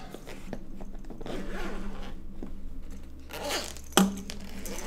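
The zipper on a nylon DJI drone shoulder bag is being pulled open, rasping along for about three seconds. A single sharp knock comes about four seconds in.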